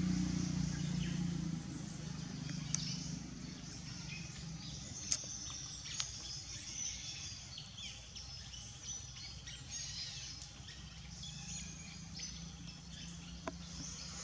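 Outdoor ambience of birds chirping and calling repeatedly in short high notes. A low hum fades away within the first second or two, and a few faint clicks come through.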